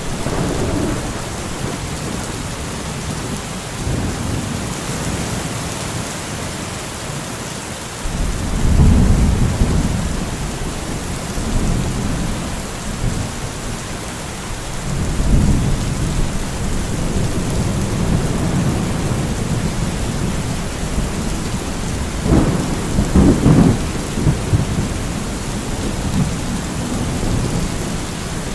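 Steady heavy rain hissing, with rolling thunder rumbling low several times and a sharper crackling peal a little past two-thirds of the way through.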